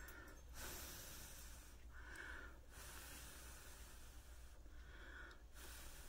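Faint, slow breathing of a person close to the microphone, hissy breaths coming and going about every two seconds, over a low steady hum.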